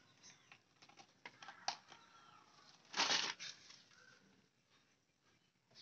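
Handling noise of multimeter test leads and wiring being moved: scattered light clicks, then one short, louder scraping rustle about three seconds in. The engine is not running.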